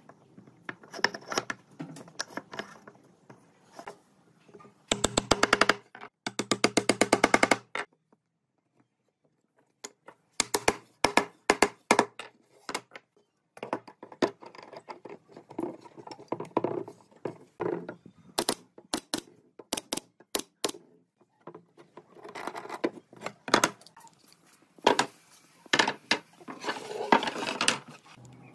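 Workshop knocks and clicks of wood and tools being handled, with two bursts of rapid, evenly spaced rattling about five and six and a half seconds in.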